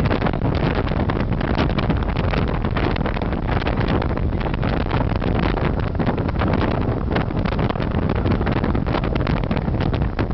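Wind rushing and buffeting on the microphone in a moving car, with steady road noise underneath; the buffeting comes as irregular rapid flutters.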